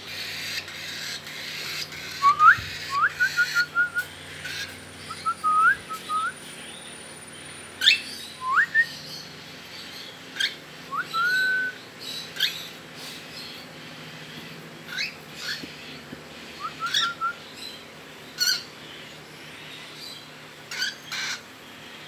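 Young cockatiel giving short rising chirps, singly and in quick runs of two to four, with scattered clicks and cloth rustling as it is handled and lifted out of its box.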